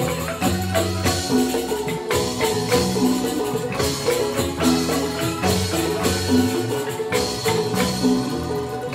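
Balinese joged bumbung gamelan music: bamboo xylophones playing fast, repeating interlocking melodic patterns over low bass notes, with jingling percussion.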